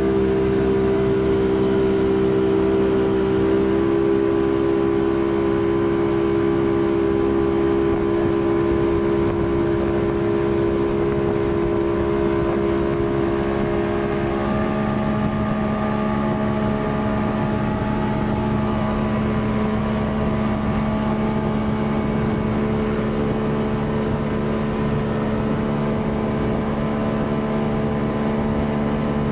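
Speedboat engine running steadily at speed, towing, with water rushing in the wake; its note shifts slightly about halfway through.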